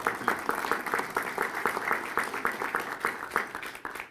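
Audience applauding: a dense patter of hand claps that thins out and stops near the end.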